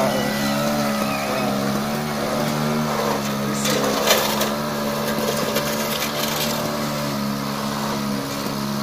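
Small engine of a homemade mini excavator running steadily while it powers the arm and bucket. A short scraping noise comes about four seconds in, as the bucket works the gravel.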